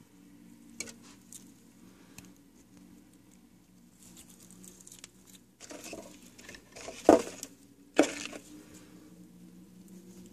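Frilled dragon chewing a cricket: scattered faint crunching clicks, with two louder sharp knocks about seven and eight seconds in.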